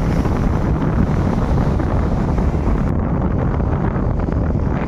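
Loud, steady wind buffeting the microphone: a dense low rumble.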